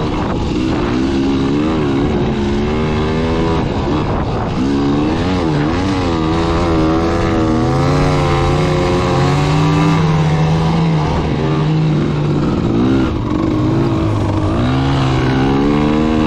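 Dirt bike engine revving up and down as the bike is ridden over sand dunes, its pitch rising and falling every second or so, with wind noise over the microphone.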